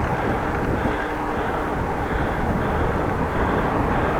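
Steady wind and rolling noise while riding a bicycle, with a constant low rumble.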